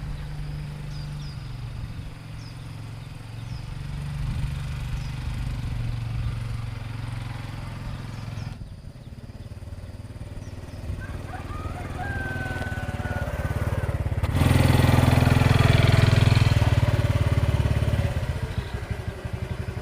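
Small motorcycle engine running steadily, growing much louder about two thirds of the way through as it comes close.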